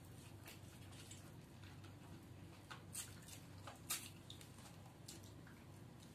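Faint wet mouth sounds of a man chewing and sucking cooked drumstick (moringa) pods: scattered smacks and clicks, the loudest about three and four seconds in, over a low steady hum.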